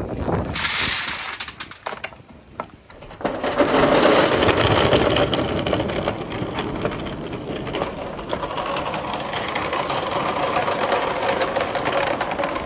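A crateful of small coloured balls is poured into a long rain-gutter marble run. They clatter and roll down the gutter together in a dense, continuous rattle that starts about three seconds in.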